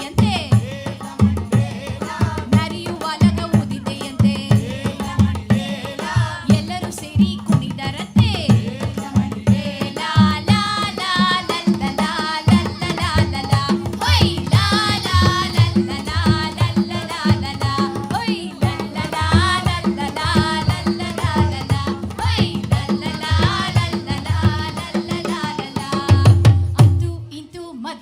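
Music: a singing voice over a steady hand-drum rhythm, dipping briefly just before the end.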